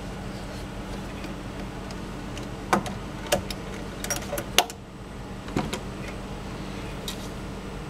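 A few sharp metallic clicks and knocks as a screwdriver and small screws are worked at the pump housing, over a steady low hum.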